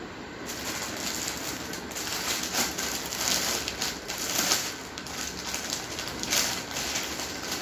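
Rustling and crinkling as garments and their packing are handled, an irregular crackle that starts about half a second in.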